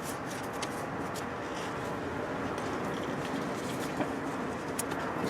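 Time-Sert thread tap being turned by hand in a broken exhaust-manifold stud hole, scraping faintly with a few small clicks as it cuts, harder going than at the start, over a steady background hum.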